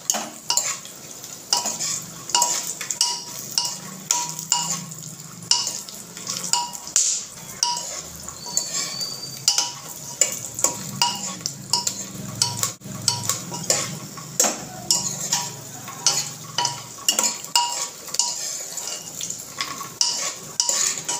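A metal spoon scraping and clinking against the inside of a pressure cooker as almonds, cashews and fox nuts are stirred and roasted in ghee. The strikes come irregularly, about one or two a second, over a light steady sizzle.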